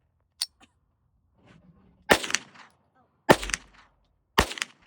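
Three shots from a Browning Buck Mark Camper .22 LR semi-automatic pistol firing Federal Punch rounds, about a second apart, each with a short ring. A sharp metallic click comes just before them.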